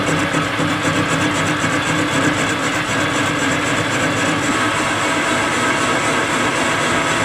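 Metal lathe taking a dry roughing cut on a cast aluminium ingot with a carbide tool. The cut comes in suddenly at the start, with a steady hum from the machine and a rapid, even ticking over it.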